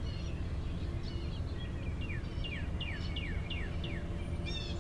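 Small birds chirping, with a quick run of short falling notes in the middle, over a steady low background rumble.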